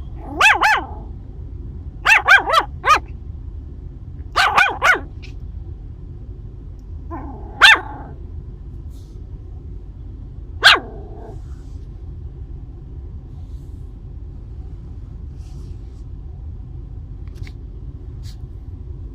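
Maltese–shih tzu mix puppy barking in short, high yaps, singly or in quick runs of two or three, about five bouts over the first eleven seconds, then falling silent.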